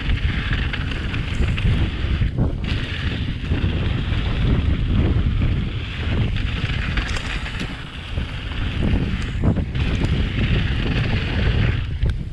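Wind buffeting the microphone over the hiss and rumble of mountain bike tyres rolling fast down a dry dirt trail; the hiss drops away briefly twice.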